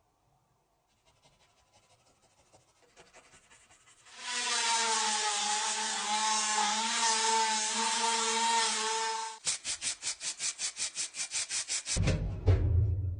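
A small electric tool runs steadily for about five seconds, its pitch wavering slightly under load. About nine seconds in, it gives way to rapid, even scraping strokes, about eight a second, with a low thump near the end.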